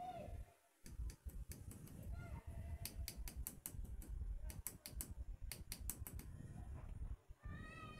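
Sharp light clicks in several short, quick runs: an eyeshadow brush tapping against a small plastic pigment pot as it is loaded with powder.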